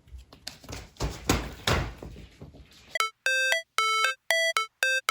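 Scratching and rustling with a few soft knocks, then about three seconds in an electronic melody of short, evenly spaced beeping notes like a ringtone starts and carries on.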